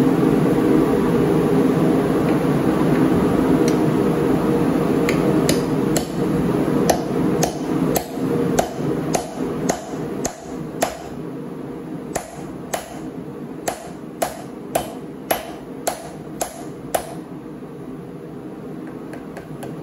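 A hand hammer forging steel on an anvil: about twenty ringing blows, roughly two a second, with a short pause about halfway. A steady low rushing from the forge runs under the first half and then dies down.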